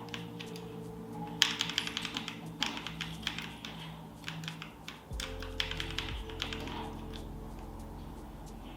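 Typing on a Tsunami MK-61 mini 60% mechanical keyboard with Outemu switches: short runs of rapid key clicks with pauses between them, over background music.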